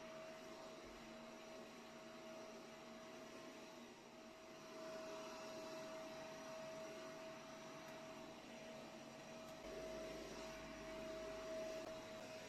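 A faint, steady hum: a single constant tone over low background noise.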